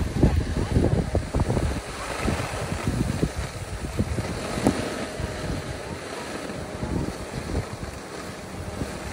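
Wind buffeting a phone's microphone as the filmer skis down the slope: an uneven low rumble and hiss, gustiest in the first couple of seconds, then steadier.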